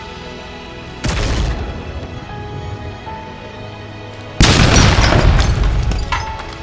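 Background music with two loud booms over it: a short one about a second in, and a bigger one a little past four seconds that rumbles away over a couple of seconds.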